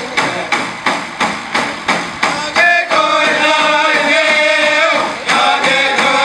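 Dene hand drums beaten together in a steady beat, about three strokes a second. About three seconds in, the drummers' voices come in, singing the song together.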